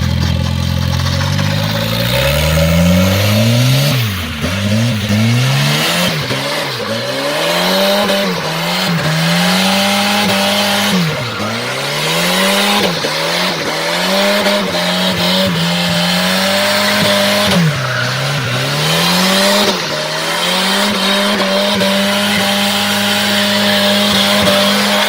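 Car engine revving hard and held at high revs, the note dropping and climbing again every couple of seconds as the throttle is worked, over the hiss and squeal of tires spinning and sliding in drifts.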